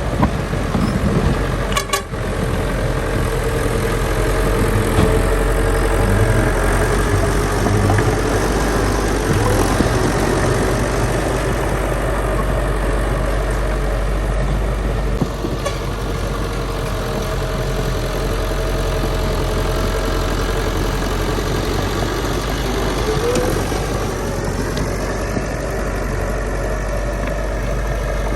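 Heavy diesel machinery engines running steadily. There is a sharp click about two seconds in, and the engine note wavers up and down later on.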